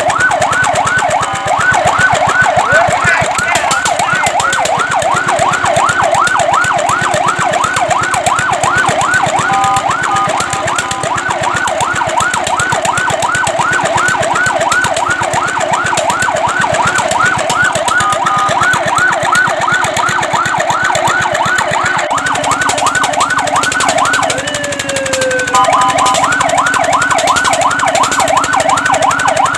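Fire truck siren in a fast yelp, its pitch sweeping up and down about three times a second without let-up. It breaks into short steady tones a few times, and drops out briefly near the end before the yelp resumes.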